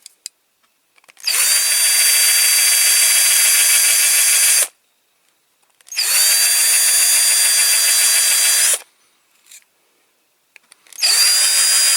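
Small electric drill drilling out a rivet in a die-cast toy car's base, run in three bursts of a few seconds each. Each burst spins up quickly in pitch to a steady whine and then stops.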